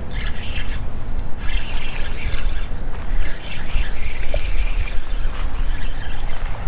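Wind rumbling on the microphone while a spinning reel is cranked to bring in a hooked fish.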